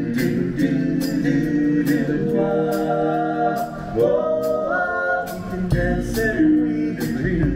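Upbeat pop song with several voices singing held notes over a steady drum beat.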